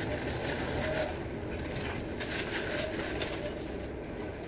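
Steady street background noise with motorbike traffic hum, and a few light clinks from the soto stall about a second in and again around two and a half seconds.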